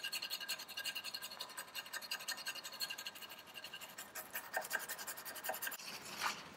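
Rapid, even scrubbing strokes of a hand tool inside the bore of a Ferguson TE20 brake cross-shaft knuckle, scratching off paint and old grease. The strokes stop near the end, and a paper towel rustles as the part is wiped.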